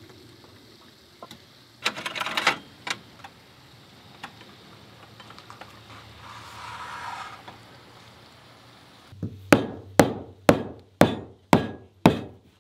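A light metallic clatter as a railing top cap is handled and fitted, then, from about nine seconds in, a mallet tapping steadily on deck boards, about six sharp strikes at two a second, setting plugs into the screw holes.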